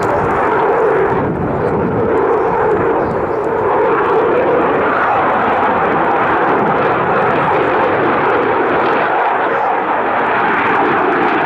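Eurofighter Typhoon's twin EJ200 turbofans heard from the ground as the jet turns through its display: a loud, steady jet noise with no break.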